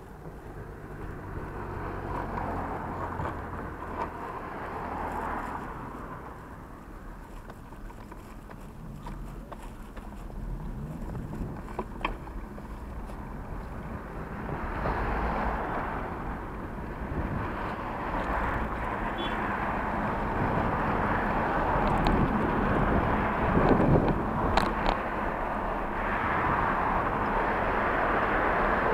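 Steady low rumble with a noisy hiss that swells and fades every few seconds, like a vehicle on the move.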